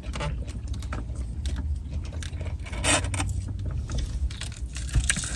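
Eating and handling of food: scattered light clicks and rustles, with one louder rustle about three seconds in, over a low steady hum.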